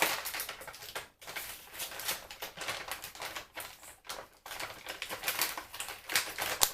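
A quick, irregular run of light taps and clicks close to the microphone, with a few sharper clacks near the start and near the end.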